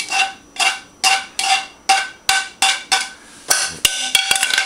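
A metal utensil knocks and scrapes against a frying pan while food is served out of it. There are about two or three sharp strikes a second, each leaving the pan ringing briefly, and a quicker rattle of clicks near the end.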